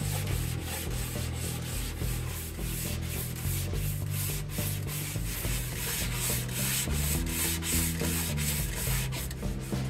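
Hand sanding with a 120-grit sanding board, repeated back-and-forth strokes of sandpaper rasping over cured epoxy fairing compound to bring it flush with the hardwood trim.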